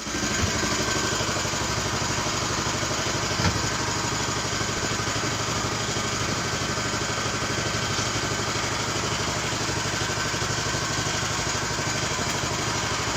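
CLC lightweight-brick (foam concrete) machine running steadily with a fast, even engine-like pulse, and a single knock about three and a half seconds in.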